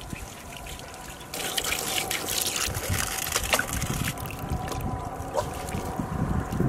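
Water trickling and splashing from a hand-pumped water jug's tube onto raw whole chickens in a plastic tub as they are rinsed and rubbed by hand. The splashing starts about a second and a half in.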